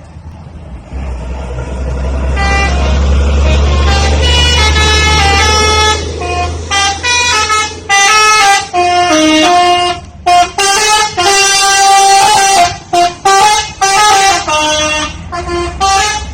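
Bus telolet horn, a multi-tone air horn, playing a rapid tune of short notes that step up and down in pitch over the low rumble of the bus engine. From about eight seconds in the notes come in choppy phrases with short breaks between them.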